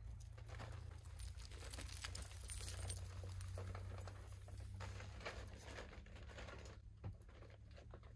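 Rustling and light clattering of gear being handled at the open back of a camper, made up of many small irregular clicks and crinkles, over a steady low hum.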